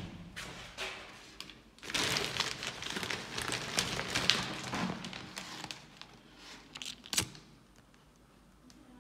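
Crinkling and rustling of plastic packaging being handled, with many small clicks, for a few seconds; then a single sharp click about seven seconds in as a lighter is struck and lights.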